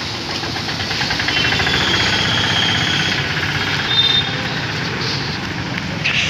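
A motor vehicle engine running steadily close by in street traffic, with a brief high beep about four seconds in.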